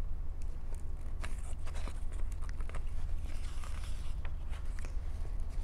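Steady low hum with scattered faint rustles and small clicks, like a paper book being handled.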